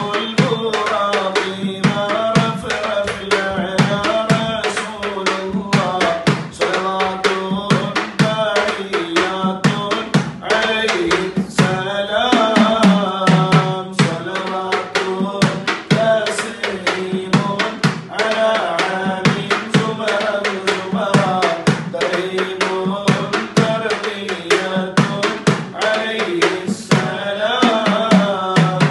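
Men's voices singing an Arabic devotional baith, kept in time by a hand-beaten frame drum (duff) with quick, steady strokes.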